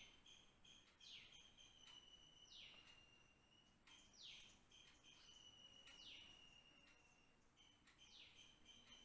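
Faint, repeated high bird calls: a quick falling whistle about every second and a half over a thin, steady high tone.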